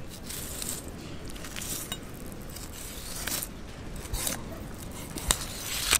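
Long knife filleting a halibut: short scraping, zipping strokes of the blade along the bones and through the flesh, with one sharp click about five seconds in.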